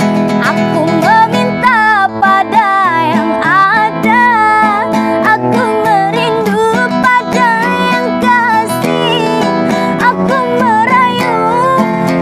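A woman singing a slow Malay pop ballad in a wavering, ornamented voice, accompanied by a strummed nylon-string classical guitar.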